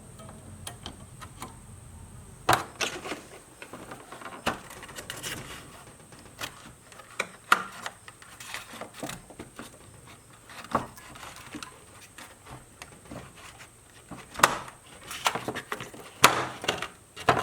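Irregular clicks, taps and light knocks of small metal parts being handled while a garden-tractor starter motor is reassembled, working its brushes back over the armature.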